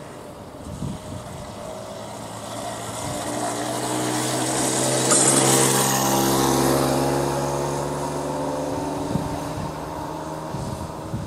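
Light motorbike engine passing close by: it grows louder as the bike approaches, is loudest about five seconds in, then fades as it rides away.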